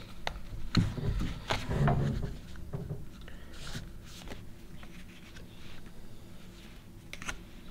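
One Piece foil trading cards being handled, slid and flicked one behind another in the hands, making scattered light clicks and soft rustles that are busiest in the first two seconds.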